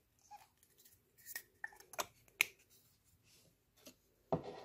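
Plastic lipstick tubes being handled and opened by hand: a series of sharp clicks in the middle, then a short scraping rustle near the end.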